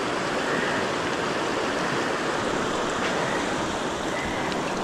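River current rushing steadily.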